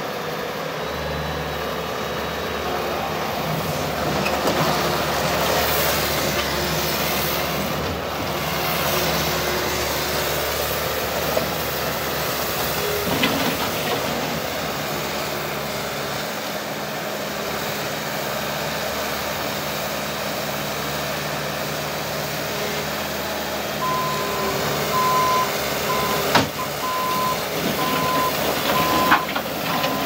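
Bobcat T590 loader's diesel engine running steadily, growing louder for several seconds about four seconds in. About three-quarters of the way through its backup alarm starts beeping in a steady on-off pattern, with two sharp knocks near the end.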